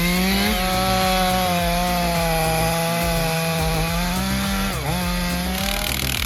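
Stihl MS 500i two-stroke chainsaw running at high revs while cutting through dense beech, its pitch holding steady with a brief dip and recovery of the revs near the end.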